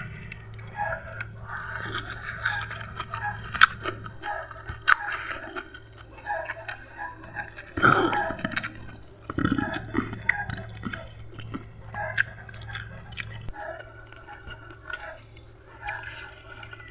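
A person chewing and biting food close to the microphone, with irregular wet clicks and crunches, the loudest a few seconds in and about eight seconds in.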